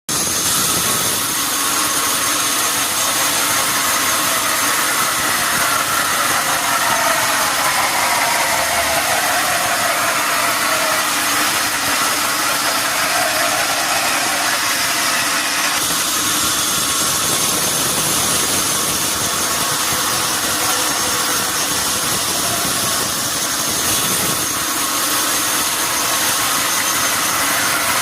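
Sawmill machinery running steadily, with a loud, even noise and a whine that slides downward in pitch several times.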